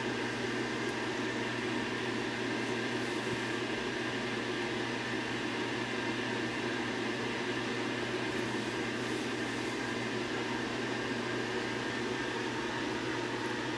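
Steady machine hum with an even hiss of moving air, like a fan-driven appliance running in a small room; it holds level throughout with no change.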